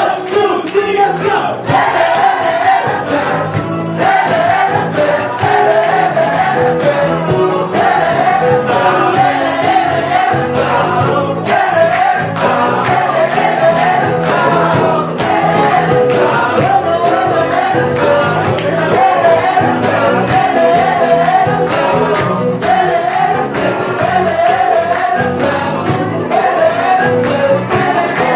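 A full band playing live and unplugged, with voices singing over drums, bass guitar, keyboards and guitar.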